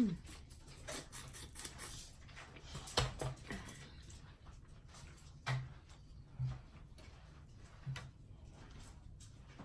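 Boiled shellfish shell being cracked and peeled by hand: faint rustling with a handful of short, sharp clicks and crackles.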